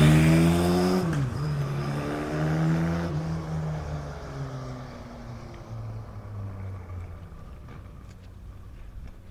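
A motor vehicle accelerating away through the gears. The engine revs rise and fall with a shift about a second in and another about three seconds in, then the sound fades as it drives off.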